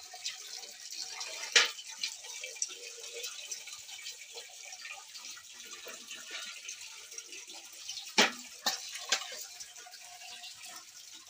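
Water splashing and sloshing as hands wash in a large basin of water, with sharp clanks of metal bowls and pots: one about a second and a half in, and three in quick succession around eight to nine seconds in.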